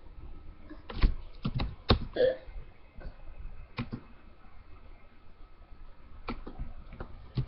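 A few sharp clicks and knocks, and about two seconds in one short throat sound from a person, the kind of small hiccup or burp made while drinking.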